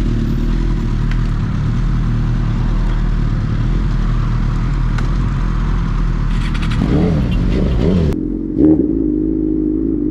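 Superbike engine running at road speed with wind rush over the helmet camera. About seven seconds in, the engine note rises and falls twice as it revs. Near the end the wind hiss cuts off suddenly and a steady engine note holds.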